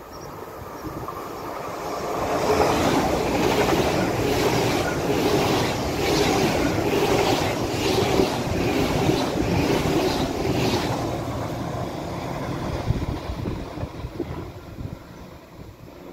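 GWR Hitachi Intercity Express Train passing close by on diesel power: the sound swells over the first couple of seconds, holds loud with a regular clatter of wheels over the rails, about one and a half to two strokes a second, then fades away in the last few seconds.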